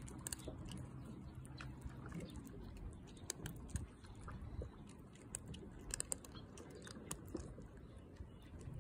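Two tabby cats crunching dry kibble: faint, quick, irregular crunches and clicks as they chew.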